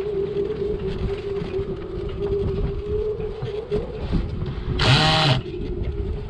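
A steady mechanical hum over a low rumble, with a brief, louder, harsh whine about five seconds in.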